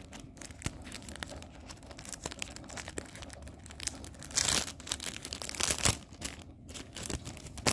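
Bubble wrap and kraft packing paper crinkling and rustling as a package is unwrapped, with scattered crackles and a louder tearing rustle about four and a half seconds in.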